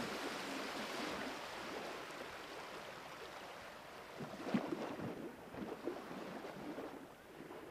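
Underwater water noise: a steady hiss that slowly fades, with scattered bubbly pops and crackles, the loudest a little past four seconds in.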